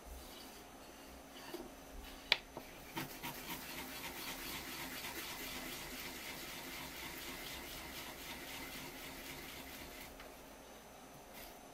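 Fresh wasabi root grated in quick small circles on a sharkskin grater: a steady, finely rhythmic scratchy rasp from about three seconds in until about ten seconds in. A single sharp knock comes just before the grating starts.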